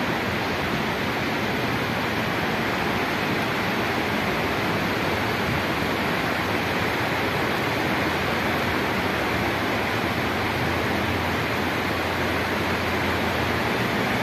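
Steady rainfall, an even hiss that does not let up.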